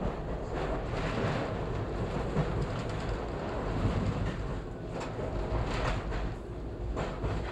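Toronto subway train running through a tunnel, heard from inside the leading car: a steady rumble of wheels on rails with a few sharp clicks.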